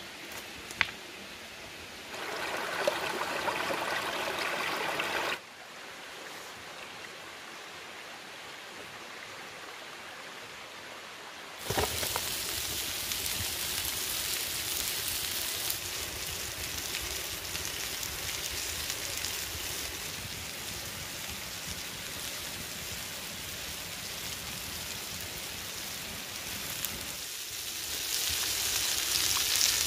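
A wood fire crackling, with a few sharp pops in the first second. About twelve seconds in, a loud, steady hiss of shrimp sizzling on a hot flat stone over the fire starts suddenly and grows louder near the end.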